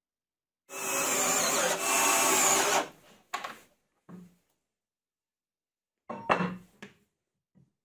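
Power drill driving a screw, running steadily for about two seconds. A few short knocks follow, the last ones near the end as wood and steel pieces are set down on the workbench.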